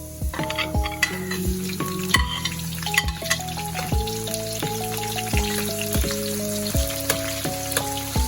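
Food sizzling as it fries in a hot pan, starting just after the beginning, over lo-fi background music with a steady beat.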